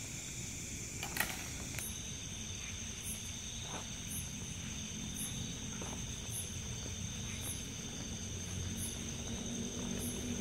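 Forest insects buzzing in a steady high drone, with another insect chirping in short, evenly spaced pulses about every three-quarters of a second. A single sharp click about a second in.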